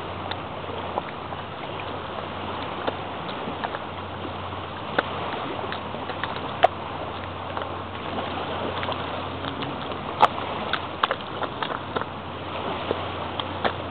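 Bare feet stepping through wet mud, with irregular short wet pops and smacks over a steady rushing background noise; the two sharpest pops come about six and ten seconds in.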